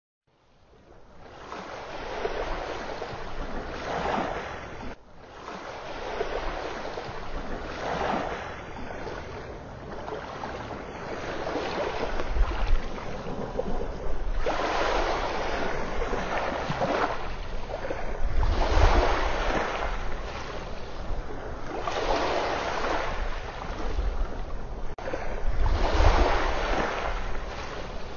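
Ocean surf washing onto a beach, the waves swelling and ebbing about every three to four seconds. It fades in over the first couple of seconds.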